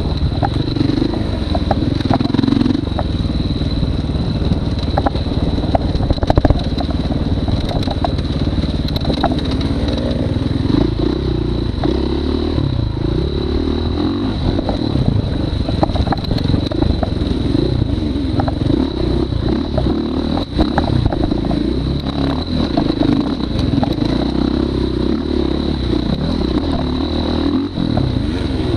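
Motorcycle engine running under a rider, revving up and falling back again and again as the bike is ridden around a short dirt track, with frequent clattering knocks. A thin, steady high whine sits underneath.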